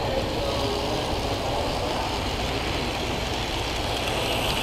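Model diesel locomotive running along its track: a steady running noise of the motor and wheels on the rails, over a low continuous hum.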